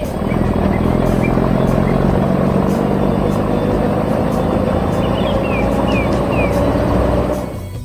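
Heavy construction-vehicle engine running steadily, a loud, even drone that fades away near the end. A few faint, high, falling chirps sound about five to six seconds in.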